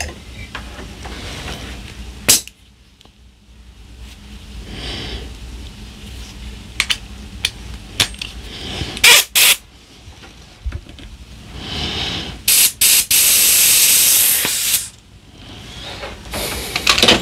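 Compressed air hissing in short blasts, then one longer blast of about two seconds near the end, blown into an air rifle's gauge port to push the regulator piston and Belleville washers out. A few sharp clicks of tools and parts being handled come in between.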